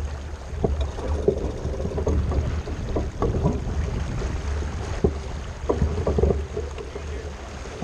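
A J/105 sailboat under sail: wind buffeting the microphone with a steady low rumble, water rushing past the hull, and scattered knocks from the boat.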